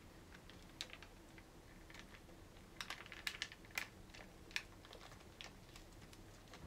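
Faint, scattered sticky clicks and crackles of wet rice paper being folded and rolled by hand around a spring-roll filling on a plastic cutting board, busiest in the middle.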